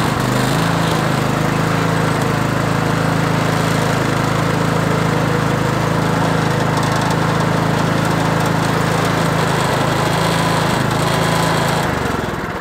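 MTD riding lawn mower's engine running at a steady speed on fresh fuel. The sound drops to a lower level near the end.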